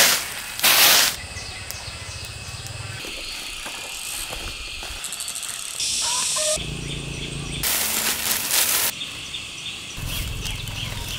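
Outdoor rural ambience with faint bird chirps, broken by a few short loud bursts of rustling.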